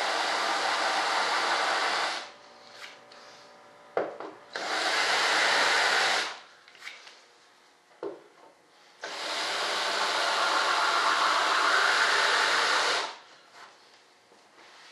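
An electric shop tool or blower runs in three bursts of steady hissing noise, about two, two and four seconds long, cutting on and off sharply, with a couple of sharp clicks in the pauses.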